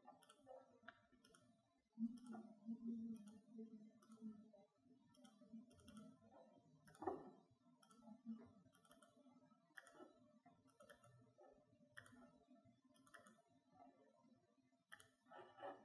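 Faint, irregular clicks from a MacBook laptop being worked, with one more distinct click about seven seconds in, over quiet room tone.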